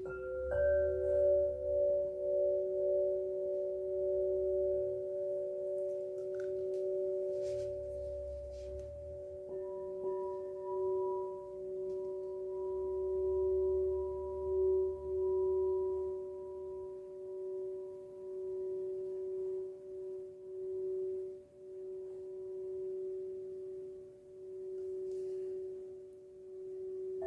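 Crystal singing bowl and crystal rods struck with a felt mallet, ringing in long, overlapping pure tones that slowly pulse. New, higher notes join about half a second in and again near ten seconds in, and the tones ring on without fading away.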